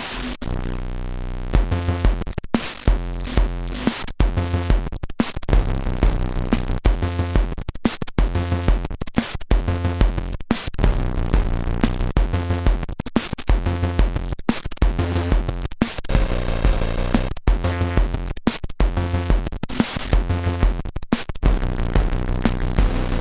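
Korg Monotribe analog synthesizer and its built-in drum machine playing an electronic pattern of deep kick thumps and a stepping bass line, run through a Korg Kaoss Pad effects unit; the sound is repeatedly cut off for an instant, chopped into short pieces.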